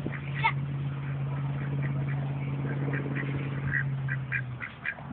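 A flock of ducks quacking, with a steady low hum underneath that stops about four and a half seconds in.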